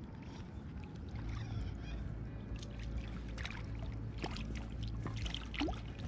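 Water splashing and sloshing as a hooked fish thrashes at the surface and is scooped into a landing net: many short irregular splashes over a low steady rumble.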